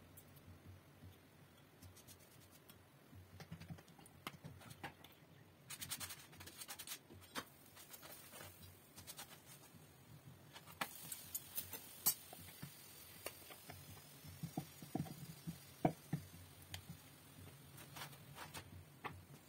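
Faint, scattered taps, scratches and clicks of hands, dough and utensils on a wooden rolling board and a stovetop griddle as parathas are rolled out and cooked, over a faint low hum.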